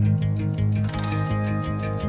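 Background music with a steady beat: a repeating bass line under a quick, even run of ticks, with more instruments coming in about a second in.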